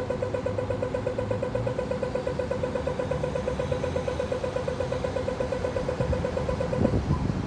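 Rapid electronic ticking of an Australian pedestrian crossing signal in its walk phase, a fast, steady pulsing tone that stops about seven seconds in, over a low hum of traffic.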